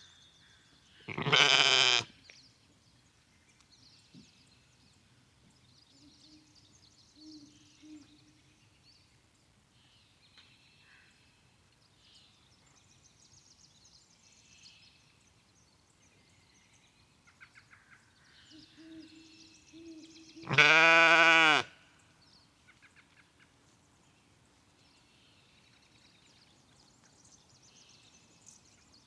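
Sheep bleating loudly twice, once about a second in and again about twenty seconds later, each call about a second long. Faint birdsong chirps in between.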